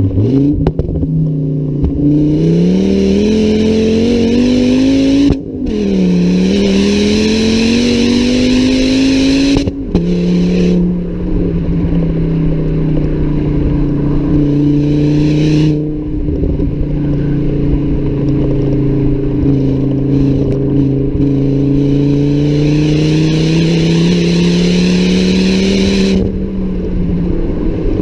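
Exhaust of a Volvo S60 T5's turbocharged 2.3-litre five-cylinder engine, tuned to about 300 hp, under acceleration. The note climbs, then breaks off and restarts lower twice, about five and ten seconds in, as the gears change. It then holds a steadier pull that rises slowly and drops again near the end.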